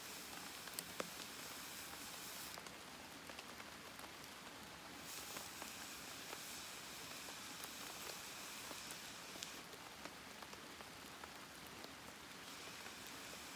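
Wood campfire burning with a steady hiss and scattered small crackles and pops, two sharper pops about a second in.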